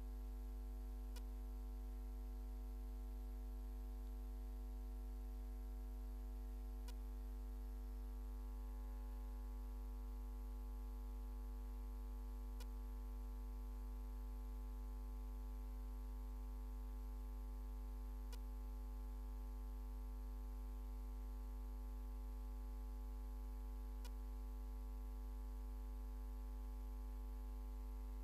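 Steady electrical mains hum on the microphone line, with a stack of steady overtones and a faint click about every six seconds.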